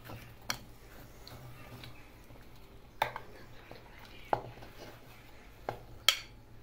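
A metal spoon knocking and clinking against a bowl and a blender cup, about five separate sharp taps spaced a second or more apart, as watermelon chunks are scooped and dropped in.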